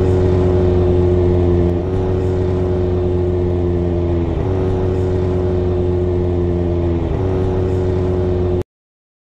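Kawasaki inline-four sport bike engine running at a steady cruise, heard from the rider's seat with wind noise. Its pitch dips briefly three times, and the sound cuts off abruptly near the end.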